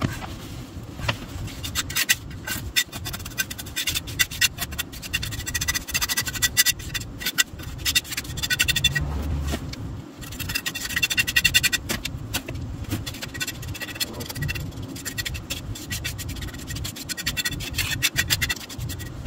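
Trowel scraping through wet concrete mix in many short, repeated strokes as a concrete patch is spread and worked.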